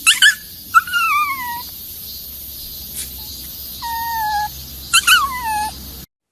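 An animal making high, whining calls several times: two quick yelps at the start, a longer call falling in pitch, another call in the middle, then more yelps and a falling call near the end, before the sound cuts off suddenly.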